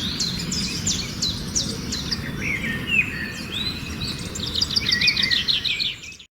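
Birds singing: a series of quick, sharply falling chirps, then a fast run of repeated notes near the end, over a steady low rumble. The sound cuts off abruptly just before the end.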